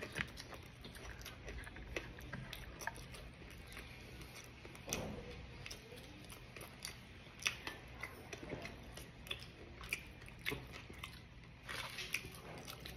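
Close-up eating sounds: wet chewing and biting with scattered short crunches and clicks, from someone eating dried fish, egg and rice by hand.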